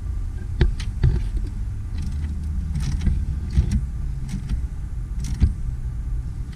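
Hands fitting and tightening the negative terminal clamp on a car battery: a string of short metallic clicks and knocks at uneven intervals over a low steady rumble.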